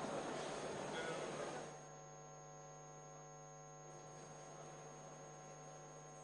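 Faint, steady electrical mains hum from an amplified stage sound system, a stack of even steady tones. A noisy wash of sound drops away a little under two seconds in, leaving the hum on its own.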